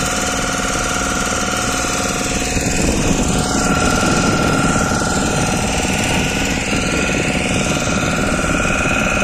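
Boat engine running steadily under way, with a continuous hum and the rush of water. For a few seconds about three seconds in it grows louder as another motorboat passes close alongside.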